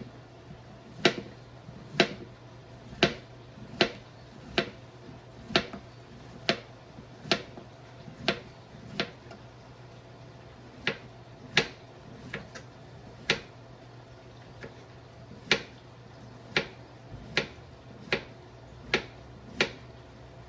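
Kitchen knife slicing a cucumber into rounds, each cut a sharp click, about one a second.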